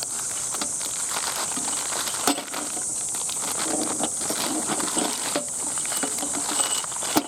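A steady, high insect chorus with scattered small clicks and crackles, and a sharper click near the end.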